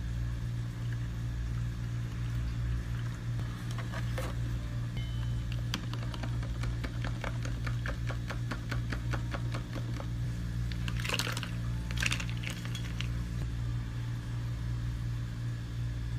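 A long stirrer tapping and clinking in a plastic cup of milk and mango drink, about four strokes a second for several seconds midway, over a steady low equipment hum. Later come two short hissing bursts.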